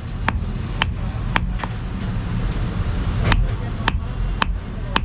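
Hand hammer striking hot bearing steel on an anvil in sharp, regular blows about two a second, with a pause of about a second midway.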